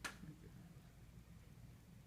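Near silence: a steady low room hum, with one short click right at the start.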